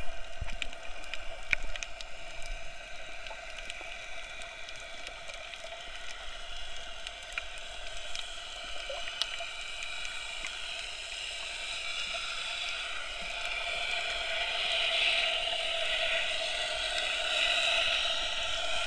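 Underwater sound heard through an action camera's waterproof housing: a muffled, watery hiss with scattered faint clicks. It grows louder over the last few seconds.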